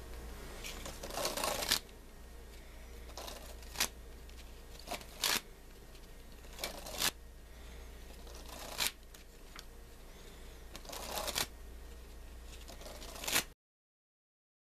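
A deck of playing cards being handled: about ten short riffles and flicks of the cards, spread out over a low steady hum. The sound cuts to silence near the end.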